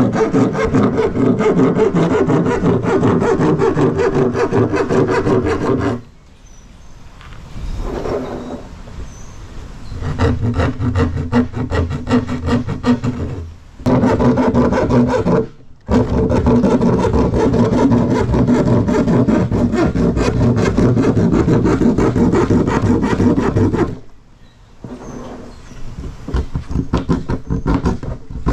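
Hand jab saw cutting through the plastic wall of a drum with fast back-and-forth strokes, stopping and restarting several times.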